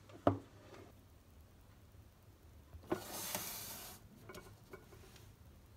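Things being handled on a kitchen worktop: one sharp knock, then about three seconds in a second-long scrape or rustle, followed by a few light clicks.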